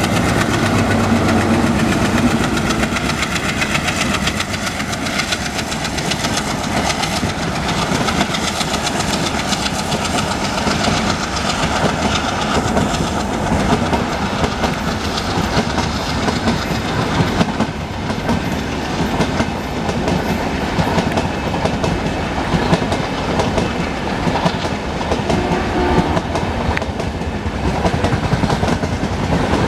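Passenger express train passing at speed, its coach wheels clattering over the rail joints in a steady clickety-clack rumble. In the first few seconds the hauling diesel locomotive's engine drone is heard as it goes by.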